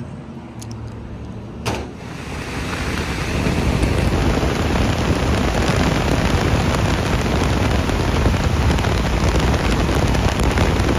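A click, then a fan with a damaged, out-of-balance wheel and loosely mounted motor spins up over about two seconds into a loud, steady rush with faint rattling ticks. The shaking comes from the missing motor bolts and the unbalanced wheel.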